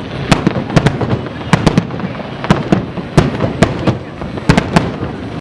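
Aerial fireworks bursting in a rapid, irregular run of sharp bangs, roughly two or three a second, over a continuous crackling din.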